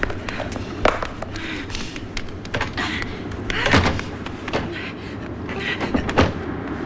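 Quick footsteps on a stone floor, then a heavy wooden door being pushed open, with irregular knocks and taps. The loudest thuds come a little before four seconds in and about six seconds in.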